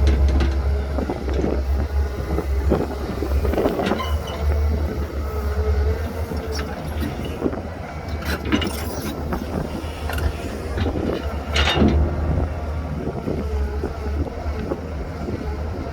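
Heavy diesel earthmoving machinery running with a deep steady rumble and a whine that comes and goes, with scattered knocks and clanks.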